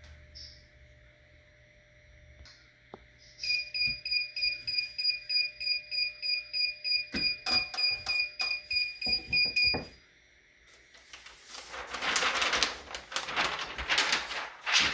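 Heat press timer alarm beeping rapidly, about four beeps a second for some six seconds: the 60-second press is done. A few knocks follow as the press is opened, then the towel and its tissue-paper cover rustle as they are shifted for the next section.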